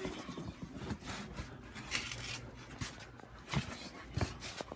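Handling noise from a phone camera being carried about: scattered rustles and knocks, with a few sharper clicks near the end.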